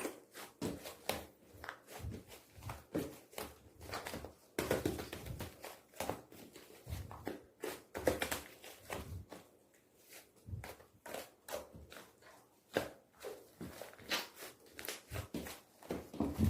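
Hands squishing, poking and stretching a soft slime, with irregular sticky clicks and small pops.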